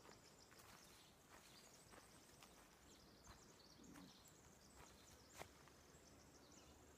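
Near silence: quiet forest ambience with faint, high, repeated chirps and a few soft footsteps on a dirt trail, with one sharper click about five and a half seconds in.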